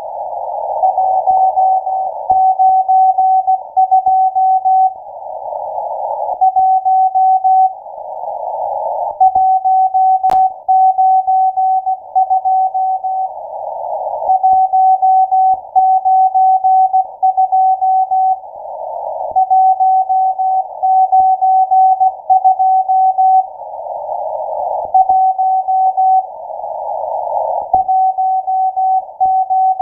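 Morse code from the M12 numbers station received on shortwave through a narrow CW filter: a single steady tone keyed rapidly on and off, sent in groups. Between the groups come short pauses, about a second long, filled only with band-limited receiver hiss.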